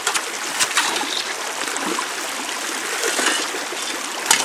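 Creek water rushing steadily down a metal sluice box set at a steep angle, with a few sharp knocks, the loudest near the end.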